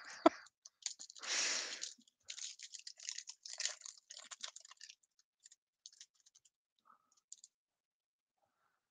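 Foil wrapper of a Topps trading-card pack torn open about a second in, then crinkled and rustled in the hands for a few seconds.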